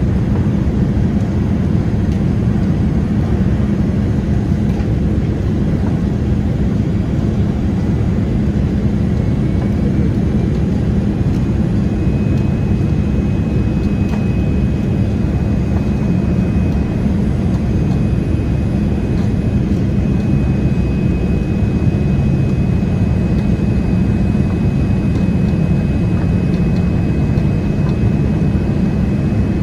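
Steady jet-airliner cabin noise aboard a Boeing 787-8: an even low rumble of the engines and airflow. A faint high steady tone joins about a third of the way in.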